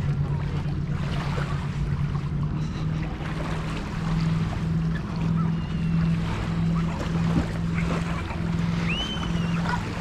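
Beach ambience: surf and wind on the microphone, under a steady low hum that pulses about twice a second from about three seconds in. A few short high chirps come near the end.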